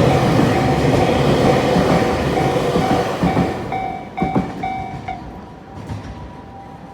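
The Super Rail Cargo electric freight train runs past and fades away, its wheels clacking. Over it a level crossing alarm rings in a steady repeating tone, heard more clearly as the train noise dies down.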